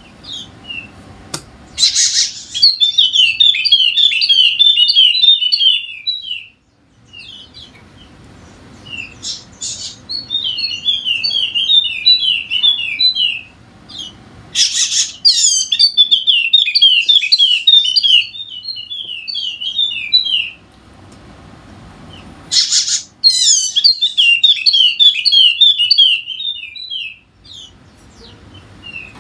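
Yellow-spectacled white-eye (pleci Wallacea) singing in four bouts of rapid, high twittering, each a few seconds long with short pauses between. Several bouts open with a loud sharp note.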